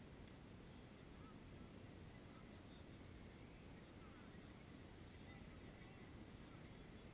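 Near silence: faint, steady outdoor background hum, with a few faint, short, high calls scattered through it.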